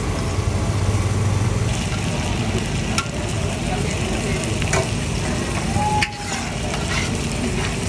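Meat and vegetable skewers sizzling in oil on a flat steel griddle, a steady frying hiss with a few sharp clicks.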